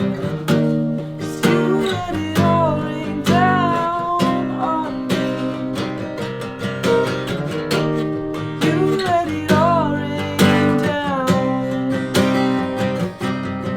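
Acoustic guitar strummed steadily under a melody line that bends and wavers in pitch, in an instrumental break of a slow pop song with no words sung.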